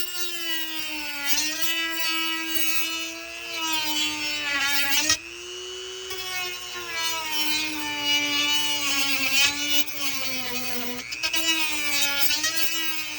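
High-speed rotary tool running, its whine sagging in pitch when it bears on the work and recovering as it eases off; the sound breaks off briefly about five seconds in.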